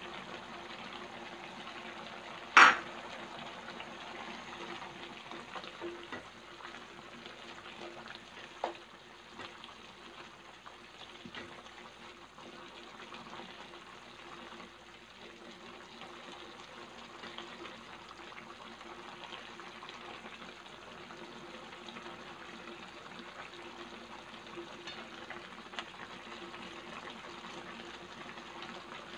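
Pot of tinolang manok (chicken soup) boiling on the stove: a steady bubbling hiss as it cooks. One sharp knock about two and a half seconds in, and a smaller click a few seconds later.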